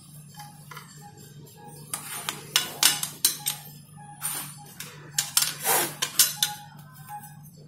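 A small metal hand tool clinking, tapping and scraping against the chainsaw's housing and choke parts: irregular sharp clinks, sparse at first and busier from about two seconds in.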